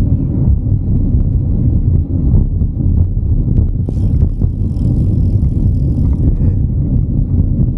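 Steady low rumble of wind buffeting the microphone of a camera riding on a moving bicycle, with a faint hiss joining for about two seconds midway.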